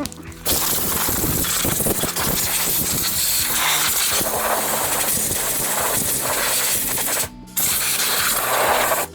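A loud, steady hissing spray that starts about half a second in, stops for a moment a little after seven seconds, resumes, and cuts off near the end.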